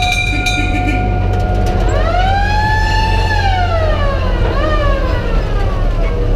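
A siren holding a steady note, then rising in pitch about two seconds in and falling away, with a second shorter rise and fall near the end, over the low steady running of a vintage fire engine.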